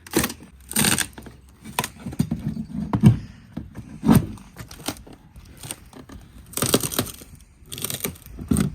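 Wooden deck planking and plywood being broken up by hand: an irregular run of sharp knocks and cracks, about ten in nine seconds, as the wood is struck and pried apart.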